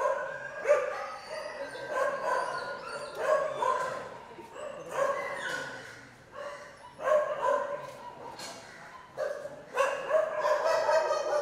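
Shelter dogs barking and yelping in their kennels: short barks come in irregular bursts every second or two, some overlapping.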